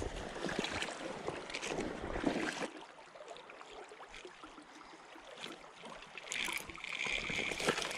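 Splashing and handling noise with scattered clicks as a small largemouth bass is reeled in and landed, easing off about three seconds in. A steady high-pitched tone starts near the end.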